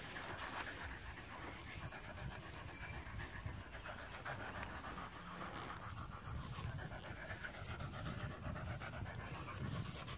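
A corgi panting steadily and hard, at first with a ball held in its mouth.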